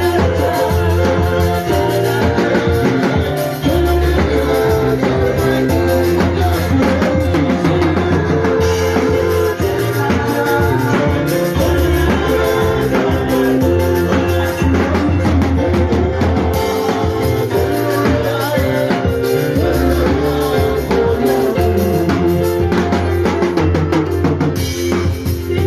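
Instrumental music with a full drum kit and bass playing a steady beat under sustained keyboard-like chords.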